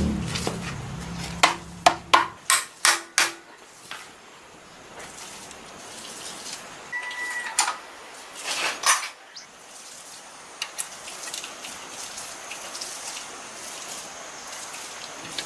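Hard metal objects clinking and knocking: a quick run of about six sharp clinks about a second and a half in, then a few louder clanks, one with a brief ring, around eight seconds in. A low hum fades out about two seconds in.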